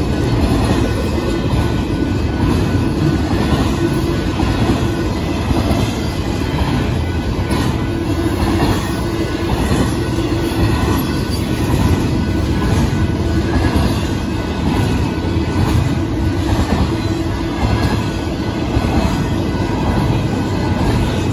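Union Pacific double-stack intermodal freight train passing at speed: a steady, loud rumble of steel wheels rolling on rail, with a few faint high steady tones above it.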